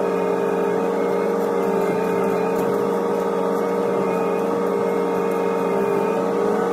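Hitachi ZX125W wheeled excavator running steadily, heard from inside the cab, with a steady hydraulic whine over the engine as the engcon tiltrotator and wide bucket grade crushed stone.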